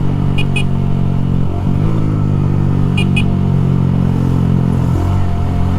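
Motorcycle engine running steadily at cruise, its pitch stepping briefly about one and a half seconds in and again near the end. A pair of short high beeps sounds twice.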